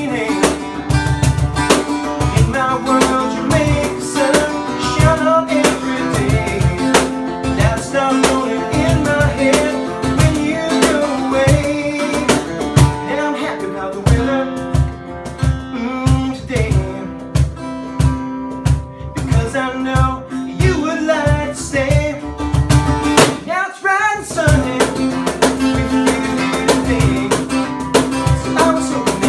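Live acoustic country music: a man's voice singing over a strummed acoustic guitar, with a steady low percussive beat that drops out briefly about three-quarters of the way through.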